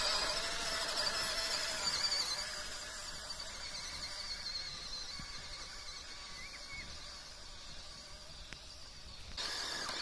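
Full-metal-upgraded MN99S 1/12-scale RC crawler's electric motor and drivetrain whining as it drives, a high, slightly wavering whine that slowly fades as the truck moves away.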